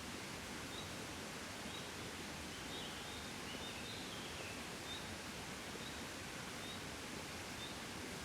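Gentle wind blowing steadily as a soft, even rush. Faint short high chirps repeat about once a second, with a brief burst of twittering about three to four seconds in.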